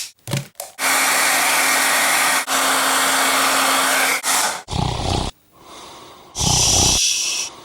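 A small electric motor appliance runs steadily with a low hum for about three and a half seconds, then cuts off. Two short, rough, low-pitched noises follow a second or so apart.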